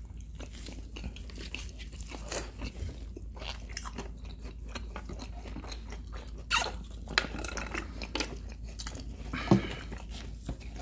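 Chewing and biting on fried fast food (Chick-fil-A fried chicken and waffle fries), with irregular crunches and a few louder bites in the second half. A steady low hum runs under it.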